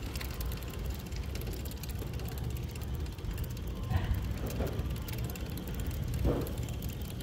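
Bicycle coasting, its freewheel hub ticking rapidly, over a steady rumble of wind and road noise on the phone's microphone.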